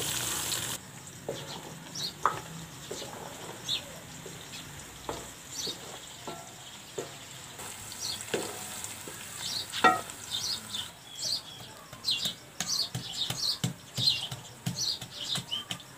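Onions frying in oil in an aluminium karahi sizzle briefly and cut off under a second in. Then come scattered knocks and bird chirps, and in the last few seconds a quick run of thuds as a wooden pestle pounds garlic cloves and green chillies in an earthen mortar.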